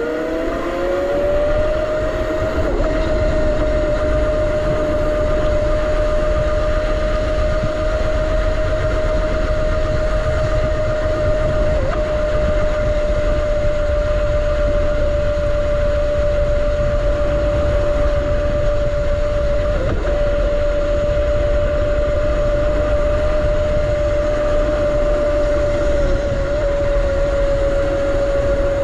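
Razor RSF650 electric motorcycle's motor whining as it gathers speed over the first second or two, then holding a steady high whine while cruising. Wind rushes over the microphone underneath.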